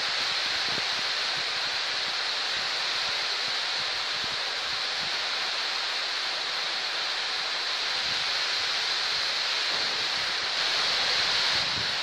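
Heavy rain pouring onto leafy trees and grass, a dense, even hiss that swells a little near the end.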